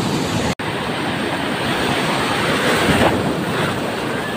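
Sea surf breaking and rushing in over shallow water, with wind buffeting the microphone. The sound cuts out for an instant about half a second in.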